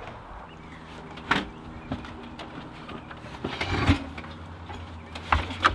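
Knocks, bumps and a short scrape from an RV refrigerator being shifted and handled in a motorhome doorway, over a steady low hum.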